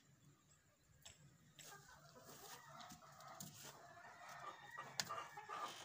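Chickens clucking faintly, with a few sharp clicks, the loudest about five seconds in.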